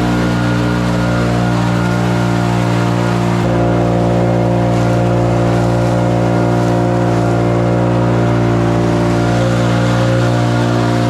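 An engine running steadily at one constant speed, with an even, unchanging hum.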